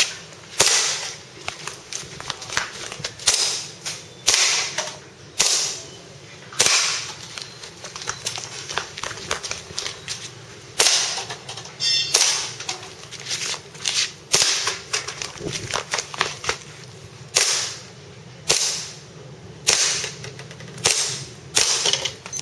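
Airsoft Hi-Capa pistol fired one shot at a time on a timed target run, about fifteen sharp snaps at uneven spacing, in short strings with pauses between them.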